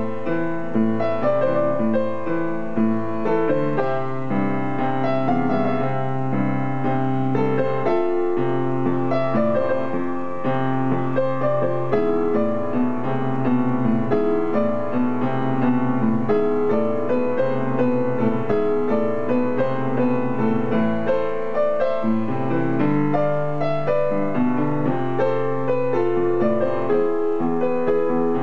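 Solo piano playing a pop-rock song arrangement, with a steady low bass line under repeated chords and melody notes.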